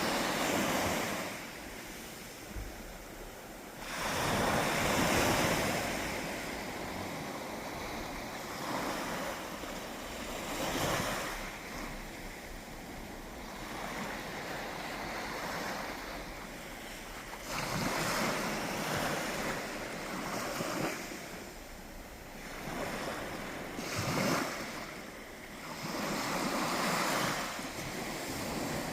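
Sea waves breaking and washing up on a beach, a rushing hiss that swells and ebbs with each wave every few seconds; the biggest surge comes about five seconds in.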